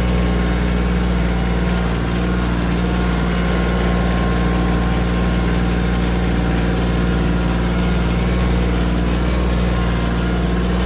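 Compact tractor's engine running steadily as the tractor drives along at an even pitch.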